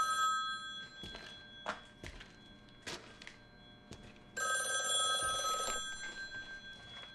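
Old rotary desk telephone ringing. One ring stops just after the start and a second ring of about a second and a half follows about four seconds later, with a few soft knocks in the quiet between.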